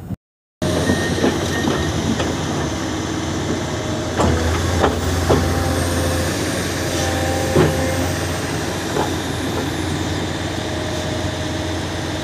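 Komatsu PC500-10 hydraulic excavator travelling on its tracks: the diesel engine runs steadily under load while the steel track chains clank, with several sharp clanks between about four and eight seconds in.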